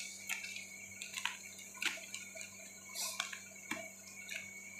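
Cabbage leaves being pulled off the head by hand: faint, irregular small crackles and clicks, over a steady low hum.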